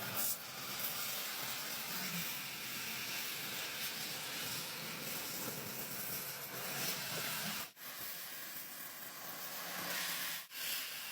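Stick welding: the arc's steady hissing crackle, breaking off briefly twice in the second half.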